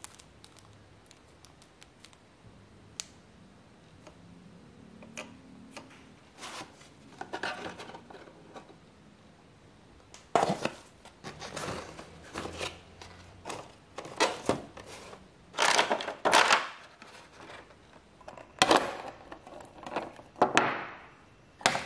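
Packaging being handled by hand: a plastic zip bag crinkling, the cardboard box and its foam insert rustling, and a hard clear plastic display case clicking and sliding. The sounds come in scattered rustles and clicks, sparse at first and louder and more frequent in the second half.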